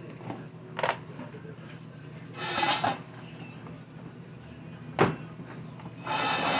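Plastic chainsaw housing being handled and slid across a wooden workbench: a couple of sharp clicks and two short scraping slides, one about two and a half seconds in and one near the end, over a steady low hum.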